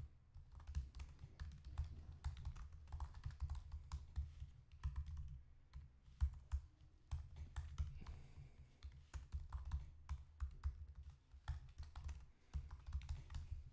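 Computer keyboard typing: quick, irregular keystrokes with dull thuds under them, easing off briefly a little past the middle before picking up again.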